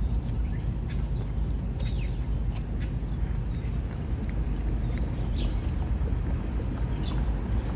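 A cat chewing wet food, with faint, irregular wet mouth clicks, over a steady low rumble.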